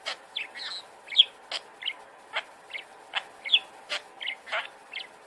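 Parrot chattering: a quick run of short chirps and squawks, several a second, with a few sharp clicks among them.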